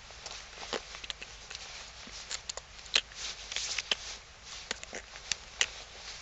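Scattered sharp clicks and short rustles, busiest about halfway through, over a faint steady hiss: a jacket rubbing against a clip-on microphone as the wearer moves his hands.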